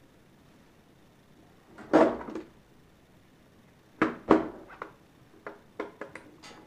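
Plastic electricity sub meter and its wires being handled on a tabletop: a clatter about two seconds in, two sharp knocks about four seconds in, then a run of small quick clicks as a screwdriver works the meter's terminal screws.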